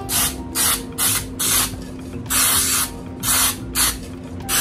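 Aerosol can of Baker's Joy baking spray hissing in about eight short bursts, one near the middle a little longer, greasing a fluted tube pan.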